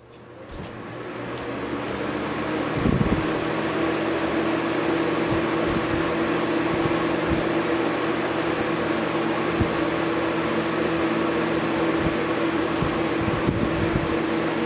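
2005 Galaxy 4733 20-inch box fan starting up on high. The motor hum and air rush build over the first two or three seconds, then run steady with a constant hum. There is a low thump about three seconds in.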